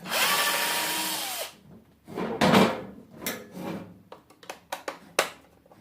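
Power drill spinning for about a second and a half, a steady motor whine that drops in pitch as it stops, backing screws out of a small appliance housing. A shorter loud scrape follows, then scattered clicks and knocks of the tool and metal parts being handled.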